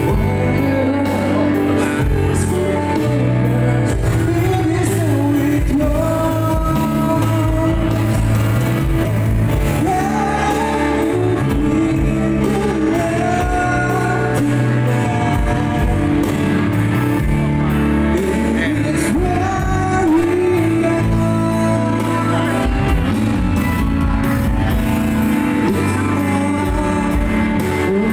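A man singing a pop song into a handheld microphone, backed by a live band of electronic drums, bass guitar and keyboard, all amplified in a large hall.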